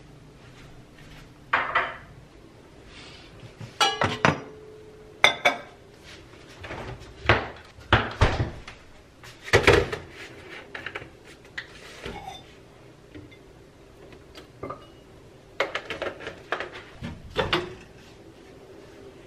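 Irregular knocks, clicks and clinks of espresso gear being handled on a counter: a portafilter taken off an espresso machine and set down, a plastic milk bottle and a milk pitcher moved about.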